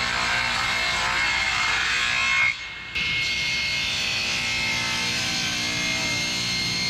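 Table saw cutting along a wooden board, with a thin steady blade whine over the cutting noise. The sound drops away briefly about two and a half seconds in, then carries on the same.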